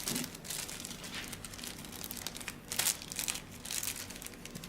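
Crinkling and scattered small clicks of hardware being handled while a screw is fitted to a car head unit, with one sharper click nearly three seconds in.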